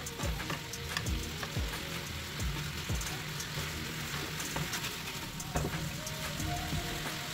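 Marinated chicken pieces sizzling in their marinade in a nonstick pan over high heat as the liquid cooks off. A steel spoon stirs and clinks against the pan, mostly in the first few seconds.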